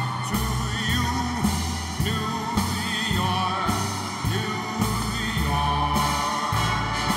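Background music: a song with a singer holding wavering notes over a steady bass line.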